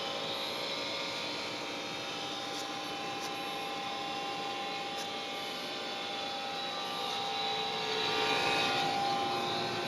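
Trane XR80 furnace running with a fairly loud, metallic whirring hum: a steady whine over a rushing noise. It is the new noise the owner wonders may come from the blower motor or its capacitor.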